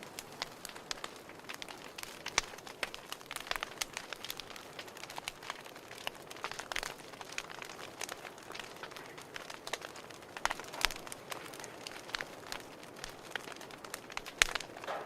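Fireplace fire crackling, with irregular sharp pops and snaps over a steady hiss, a few louder pops among them.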